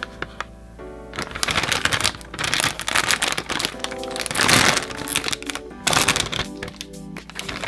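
Background music over a few sharp clicks, then a dense crackling clatter from about a second in: snacks and their plastic packaging being handled.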